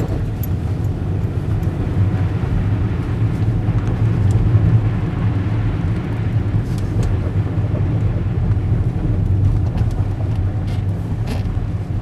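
Car driving along a snow-covered street, heard from inside the cabin: a steady low engine and road rumble, with a few faint clicks about two-thirds of the way in and near the end.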